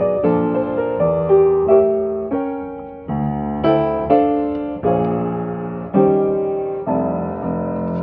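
Kawai 506N console piano being played: a slow run of full chords, one struck about every second and left to ring and fade.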